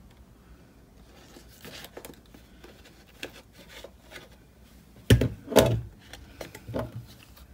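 Handling noises of paper and a small craft tool on a desk: faint rustles and taps, then two loud sharp clacks about five seconds in and a softer one near the end, the tool being pressed and failing to work.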